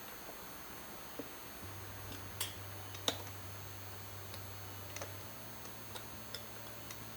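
Light scattered clicks and taps of carburetor parts being handled, with two sharper clicks a few seconds in. A faint low hum comes in about two seconds in.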